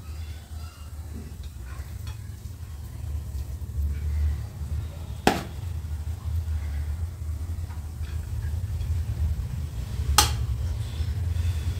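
A metal spoon scoops cooked biryani rice out of an aluminium pot and serves it onto a plate. There are soft scraping sounds and two sharp clinks of spoon on dish, about five seconds in and near the end, over a steady low hum.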